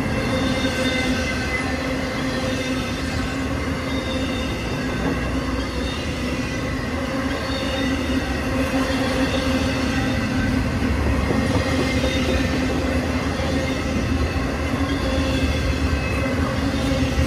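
Intermodal freight cars carrying double-stacked containers and trailers rolling steadily past at speed: a continuous rumble of steel wheels on rail, with a steady squealing tone from the wheels.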